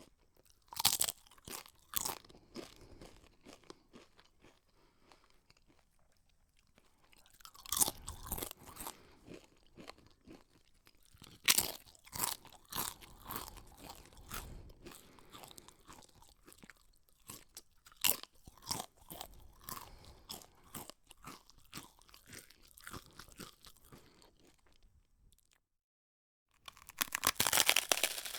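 A person biting and chewing crunchy snack food: irregular sharp crunches in clusters with quieter chewing between them. The sound cuts to silence for about a second near the end, then a new, denser bout of crunching starts.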